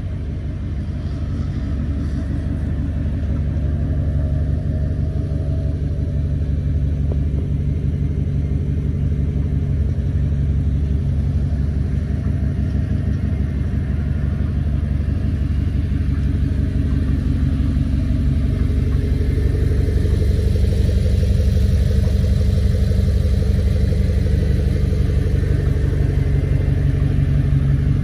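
2008 Audi R8's 4.2-litre V8 engine running steadily at idle, a low, even rumble with no revving, growing gradually a little louder through the stretch.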